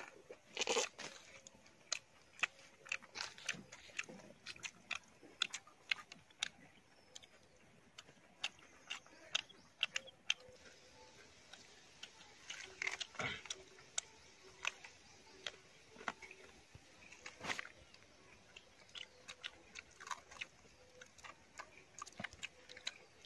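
Roasted chicken being torn apart by hand and chewed, with irregular sharp crunches and cracks.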